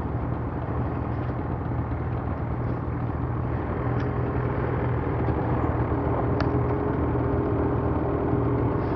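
Ski-Doo Gen 4 850 snowmobile's two-stroke twin-cylinder engine running steadily under way, a constant low drone with a higher tone joining about three and a half seconds in.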